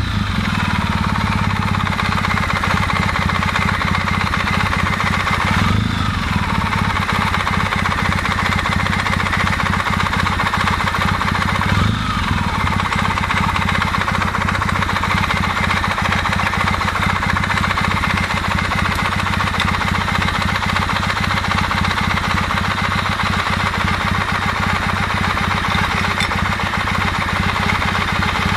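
Kawasaki W650 air-cooled parallel-twin engine idling just after start-up, with a rapid rhythmic knocking in its running, briefly revved twice, about 6 and 12 seconds in. The knock is the one the owner traces to the camshaft drive gear.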